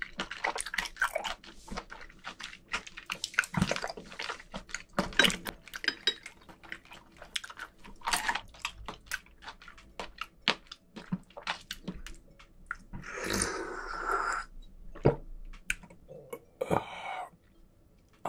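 Close-miked wet chewing of raw octopus, a dense run of small wet clicks and smacks. About thirteen seconds in comes a breathy rush lasting about a second and a half, followed by a few more scattered clicks.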